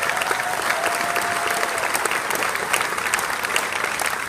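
Audience applauding, a dense, even clapping, with a thin high held tone over the first two seconds or so.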